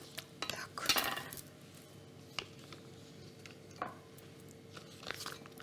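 Scattered light clinks and scrapes of kitchen utensils on dishware as soft butter is handled for a spiced butter: a cluster in the first second, a few single taps in the middle and more near the end, over a faint steady hum.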